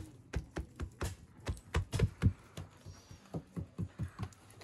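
Hands patting and pressing thin qutab dough, folded over its greens filling, flat against a wooden board: a quick, uneven run of soft pats, about four a second, loudest around the middle and trailing off near the end.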